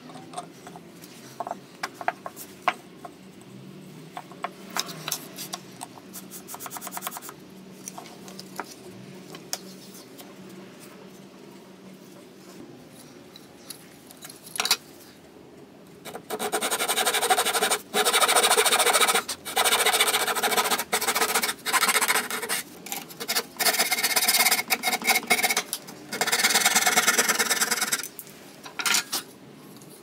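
Wood being rubbed or scraped by hand in back-and-forth strokes, a rasping scrape in runs of strokes through the second half, after scattered light clicks and taps in the first half.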